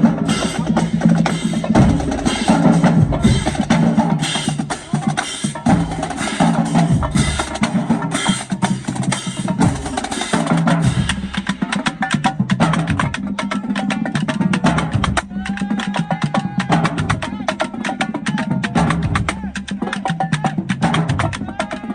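Marching band drumline playing a street cadence while marching: rapid snare and stick clicks over pitched bass drums. It is fuller and louder in the first half, and thins to mostly crisp stick clicks in the second half.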